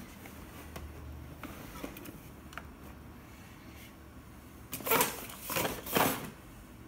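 Handling noise on a workbench: a few faint light clicks, then about five seconds in three short, loud scraping rustles of a cardboard box being closed and slid aside.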